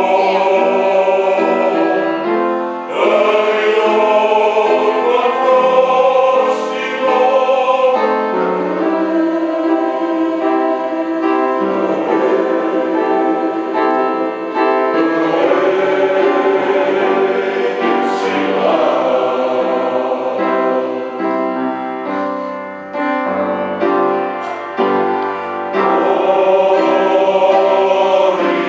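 A men's choir singing a song in harmony, accompanied by an upright piano.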